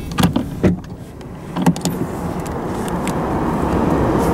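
Car door being opened from inside a Mercedes-Benz A-Class: the inside handle and latch click sharply twice in the first second and once more at about a second and a half, then a steady noise from outside swells as the door swings open.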